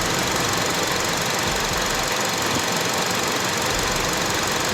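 Steady, even running noise from the engine bay of a 2005 Honda CR-V 2.4 with the engine idling.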